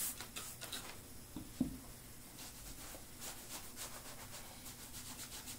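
A few faint spritzes from a pump spray bottle of liquid saddle soap onto the toe of a leather cowboy boot, with a soft thump about a second and a half in. After that come faint short rubbing and handling noises.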